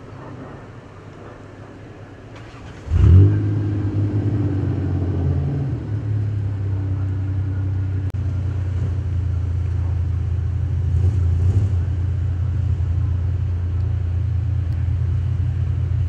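A motor vehicle engine starts about three seconds in with a brief rising rev, then runs steadily at idle with a low hum.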